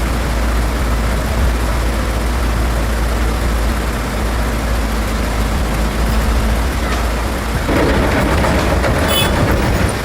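Heavy machine's diesel engine running with a steady low rumble; about eight seconds in a louder, noisier clatter joins it.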